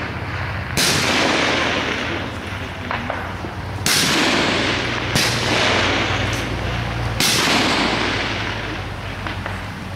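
Four high-power rifle shots on the firing line: the first about a second in, three more between about 4 and 7 seconds in. Each is a sharp crack with a long echo that fades over a second or two.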